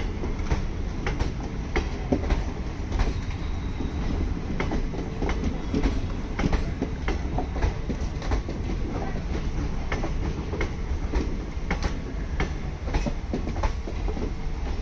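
Indian Railways sleeper-class passenger coaches rolling past close by as the train departs. Their wheels clack unevenly over the rail joints, a few times a second, over a steady low rumble.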